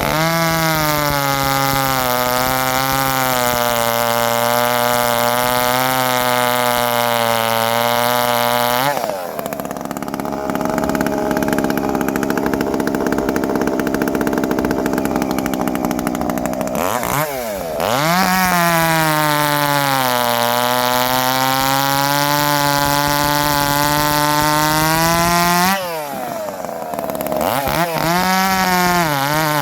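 Ported Shindaiwa 390sx two-stroke chainsaw running hard in a cut. The engine note dips and recovers as it loads up. Around 9 s and again near the end, the note changes briefly as the saw comes out of the wood, then it goes back into the cut.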